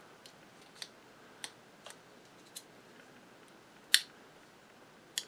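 Light metal clicks and taps of a small palette knife against a metal grease-wick holder and the grease can while packing grease, a handful of scattered ticks with one louder click about four seconds in.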